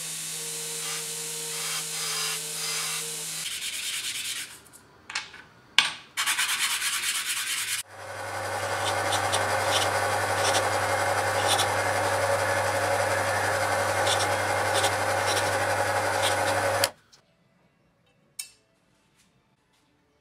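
A belt sander runs with a steady hum and hiss while brass is worked against it. After a few seconds of short scraping and clicking, an electric drill runs for about nine seconds boring holes through a brass bolster plate, then cuts off sharply. Near silence follows, with a faint click.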